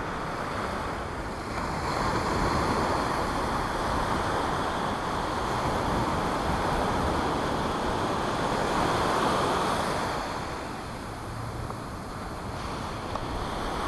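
Ocean surf breaking and washing up a sandy beach, swelling about two seconds in and easing off near the end.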